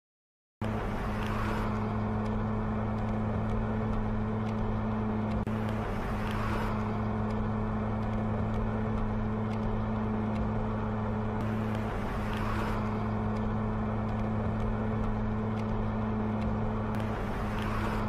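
Car engine running at a steady pitch, starting abruptly about half a second in, with a whoosh-like swell coming back about every five or six seconds.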